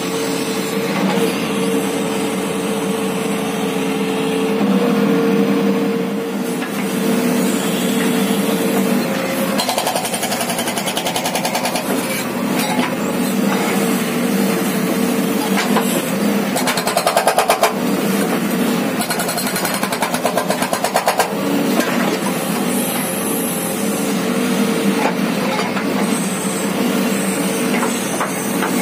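JCB 3DX backhoe loader's diesel engine running steadily under load, with its hydraulic rock breaker hammering rapidly on rock in several short spells from about ten seconds in.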